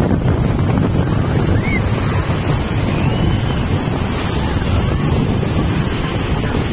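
Rough sea surf breaking and washing in shallow water, with strong wind buffeting the microphone.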